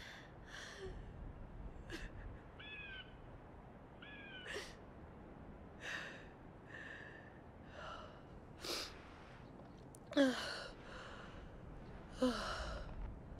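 A young woman crying quietly: short, shaky, breathy sobs and gasps, some with a whimpering catch in the voice, and two louder sobs near the end.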